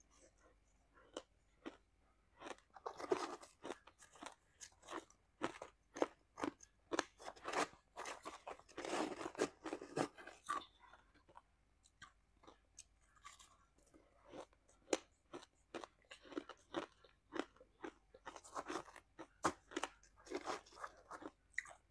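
Shaved ice being crunched and chewed in the mouth, close to a clip-on microphone: quick, irregular crackling crunches that come in denser bursts with each mouthful.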